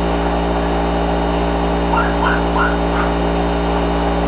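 A small white puppy yipping: about five short, high yips in quick succession, starting about two seconds in. Underneath is a loud steady hum.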